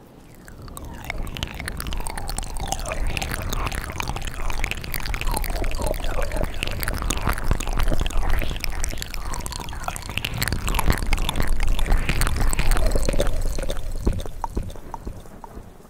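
Close-miked ASMR mouth sounds: a dense run of wet clicks, smacks and pops from lips, tongue and a fingertip pressed against the lips. They swell about a second in and fade out near the end.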